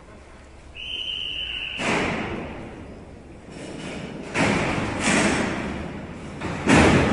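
A short high steady tone, then four heavy slams, each ringing on in the echoing steel-and-concrete cellhouse; the last, near the end, is the loudest. Steel cell doors are the likely source of the slams.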